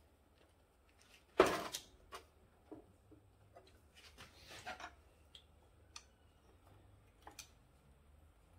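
Metal engine parts and hand tools clinking and knocking during an engine teardown: one sharp clank about a second and a half in, then a scattering of lighter clicks and small knocks.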